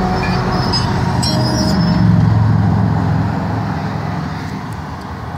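Car driving: a steady road and engine rumble that swells to its loudest about two seconds in, then slowly fades. A few brief high chirps sound in the first two seconds.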